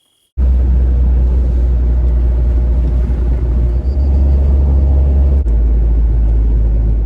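Loud, steady low rumble of a car on the move, road and engine noise with no speech, starting and stopping abruptly; a brief click about five seconds in.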